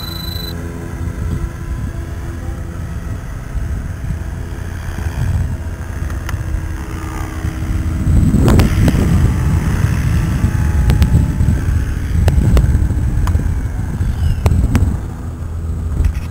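Radio-controlled model helicopter in flight: a steady motor and rotor whine whose pitch bends as it manoeuvres. From about halfway in it gets louder and rougher as the helicopter comes closer, with a few sharp clicks.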